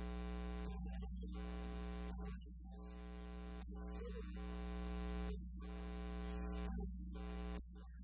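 Steady low electrical mains hum with a buzzy edge, dropping and rising in level a few times.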